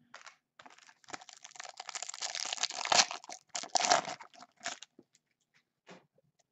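Clear plastic wrapper of a trading card pack crinkling and crackling as gloved hands tear it open, loudest about three and four seconds in, with a few last crinkles before it stops.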